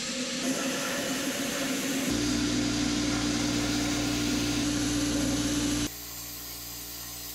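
Handheld plasma cutter cutting through 3/8-inch-wall 5x5 steel square tubing: a loud steady hiss of air and arc, with a steady buzzing tone joining about two seconds in. The cut stops abruptly near six seconds, leaving a quieter steady hum.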